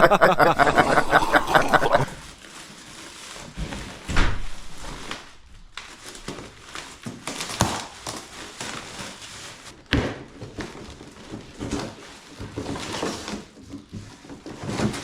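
Chuckling for about two seconds, then scattered rustles and knocks of packaging and a new exhaust muffler being unpacked and handled.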